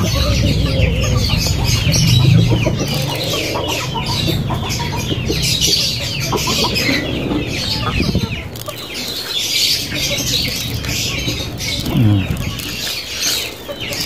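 Chickens clucking and calling, with a steady run of high, quick chirps and one lower call that falls in pitch about twelve seconds in.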